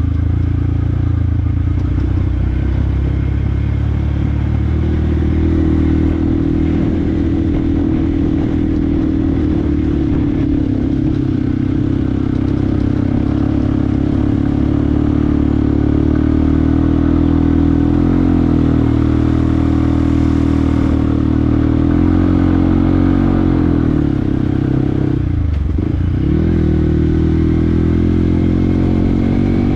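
Yamaha WR155R's single-cylinder four-stroke engine running as the bike is ridden, at fairly steady revs that rise a little about five seconds in. About 25 seconds in the engine pitch drops sharply and climbs back.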